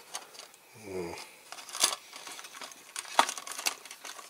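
Small clicks and rustles of fingers handling a small diecast model car body, the sharpest click about three seconds in, with a brief murmured hum from the man about a second in.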